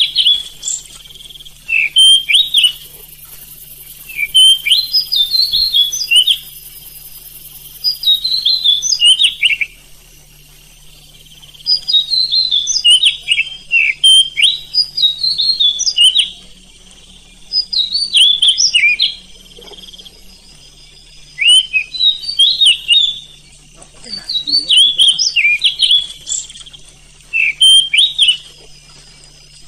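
Oriental magpie-robin (kacer) singing: bursts of rapid, varied whistles and chattering notes lasting a few seconds each, with short pauses between. A faint steady low hum runs underneath.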